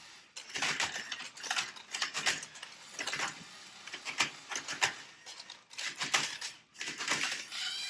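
Plastic Rubik's cubes being twisted: quick, irregular runs of clicking and clacking turns, with a few short pauses. The turns come from a cube being solved by hand and from LEGO Mindstorms cube-solving robots turning their cubes.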